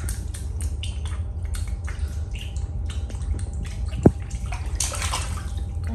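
Water splashing and dripping in a small inflatable paddling pool as a child's hands move through it, with a sharp knock about four seconds in and a wider splash soon after.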